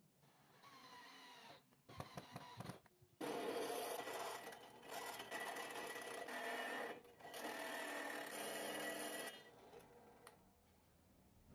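A power tool running on material in two long stretches, about four and two seconds, after a few short knocks.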